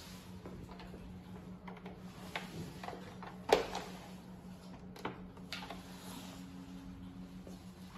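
Cables being handled and a connector plugged into the back of a video projector: a few clicks and knocks, the loudest about three and a half seconds in, over a steady low hum.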